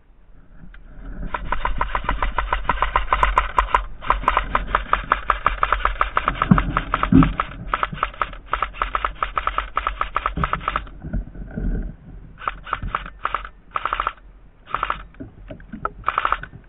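AK-style airsoft rifle firing on full auto: long bursts of rapid, evenly spaced clicks from about a second in, broken by brief pauses, then several short bursts near the end.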